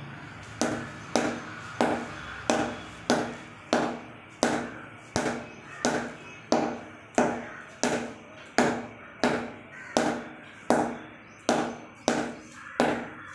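Leather cricket ball bounced repeatedly on the face of a new Kashmir willow cricket bat, about one and a half crisp knocks a second in an even rhythm, each with a short ring off the blade. The bat is sold as ready to play without seasoning or knocking in.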